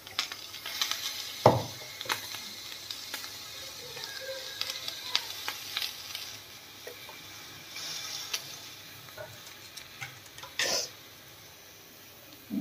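Fried rice being spooned onto a hot sizzler plate, sizzling with a steady hiss, while a wooden spatula scrapes and taps against the pan and plate. A sharper knock comes about a second and a half in and another near the end.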